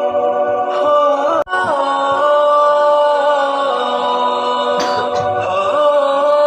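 Background music: a wordless vocal piece with long held notes and a few sliding ones, cutting out for an instant about a second and a half in.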